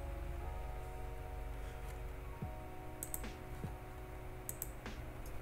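Soft background music of long held notes that change every second or so, with a few faint clicks.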